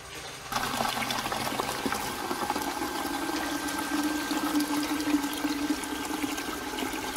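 Water from an EMP electric pump gushes out of a hose into a plastic bucket after passing through the intercooler core alone. The flow starts suddenly about half a second in and stays steady, with a faint high whine underneath. This is a flow test running at about 10.7 gallons a minute.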